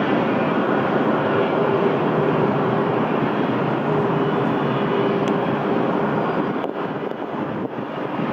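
Boeing 787 jet airliner's engines running at taxi power, heard from a distance: a steady rushing noise with a faint hum, easing slightly near the end.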